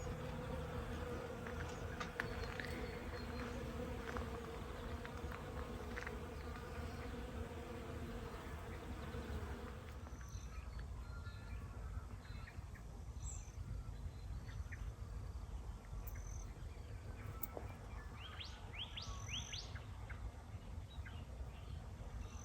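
Honeybees buzzing as they work the garden, a faint steady hum that is strongest for the first ten seconds or so and then fades.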